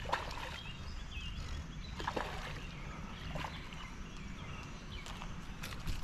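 Steady low rumble of wind and moving water with a few light water splashes scattered through.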